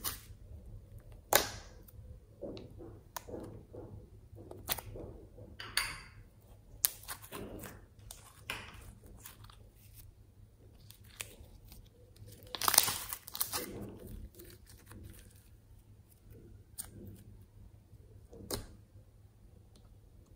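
Glitter slime being squeezed, stretched and pulled apart by hand: irregular sticky crackling and popping, with a few louder snaps and the loudest stretch about two-thirds of the way through.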